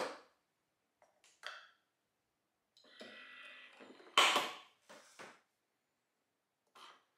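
A few short clicks and knocks of a Nespresso Vertuo coffee machine being handled, the loudest about four seconds in.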